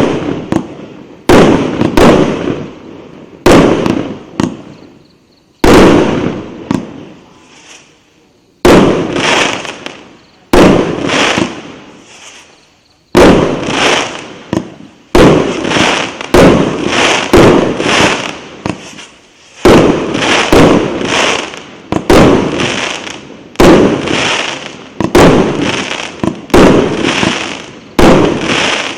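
Multi-shot consumer fireworks battery (cake) firing shot after shot: each sharp bang is followed by a fading hiss and crackle from the crackling stars. The shots come about every one and a half to two seconds at first, then about once a second from roughly halfway in.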